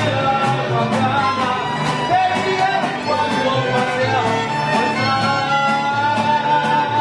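Mariachi band playing: violins carrying a held melody over the steady strumming of guitars.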